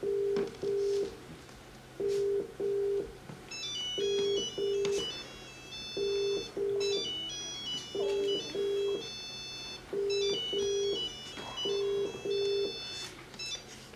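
Telephone ringback tone as a call rings out: pairs of short low beeps repeating about every two seconds. From about four seconds in to about ten seconds in, a mobile phone ringtone melody plays over it in three high phrases.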